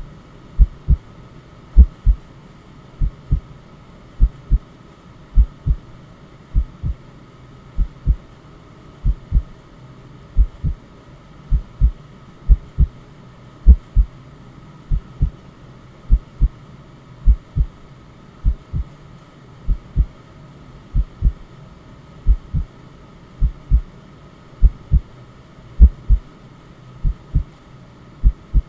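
Recorded heartbeat in a slow, even lub-dub rhythm: a pair of low beats a little less than once a second. It plays over a soft, steady white-noise hiss used to soothe a crying baby.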